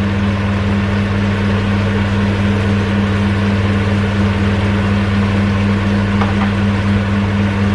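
Kitchen range hood fan running steadily, a low electric motor hum under an even rush of air.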